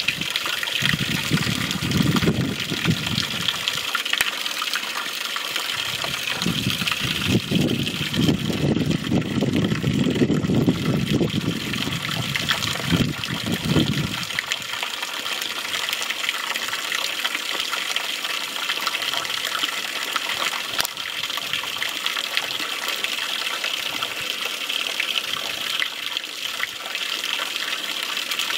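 A water jet spraying steadily onto wet dirt ground, making a constant gushing hiss. A low rumble comes and goes during the first half.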